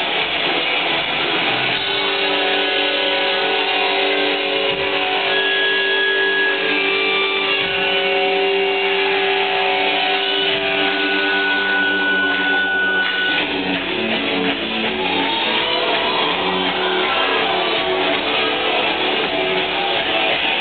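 Rock band playing live with loud electric guitars, heard from the audience. Long held guitar notes ring through the first half, then about two-thirds of the way in the band goes into a choppier rhythm with heavier bass and drums.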